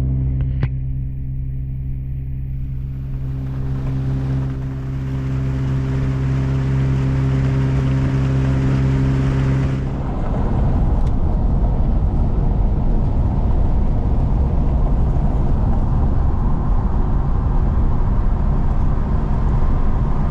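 Boat's outboard motor running with a steady hum, then opened up about halfway through, growing louder and rougher as the boat gets under way.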